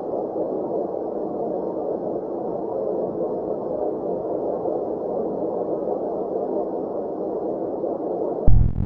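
A steady, even rumbling drone of noise with faint thin high tones over it: a 'star sound' space-audio clip. It cuts off suddenly near the end as electronic music with a heavy beat starts.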